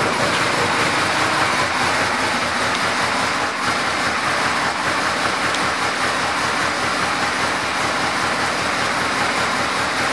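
2008 Yamaha Royal Star Venture's V4 engine idling, a steady loud running sound with a fast, even pulse underneath.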